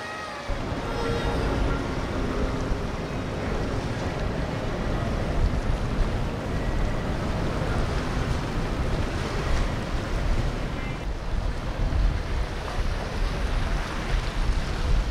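Outboard boat engines and water wash, with wind buffeting the microphone in uneven gusts of low rumble.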